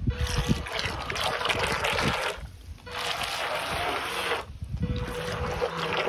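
Remote-control alligator head toy's propellers churning pool water in three spells of splashing, each breaking off briefly, with a faint steady small-motor whine under the splashing.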